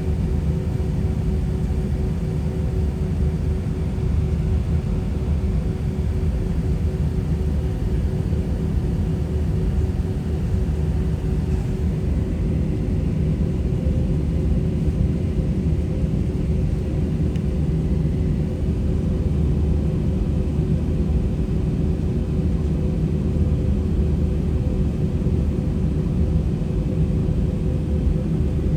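Airbus A320-200 cabin noise at a window seat: the jet engines run steadily under a deep rumble, with a constant hum and no change in pitch or level.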